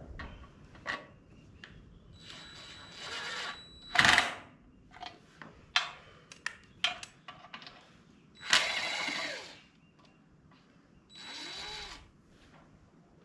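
Power drill running in three or four short bursts of a second or so, with sharp clicks and clinks of tools and parts between them.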